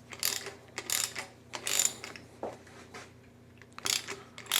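Ratchet wrench clicking in several short, uneven strokes, working the rocker arm nut on a V6 cylinder head.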